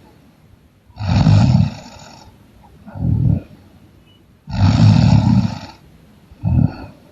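A person snoring loudly in a steady breathing rhythm. There are two long snores about three and a half seconds apart, each followed about a second and a half later by a shorter, softer breath sound.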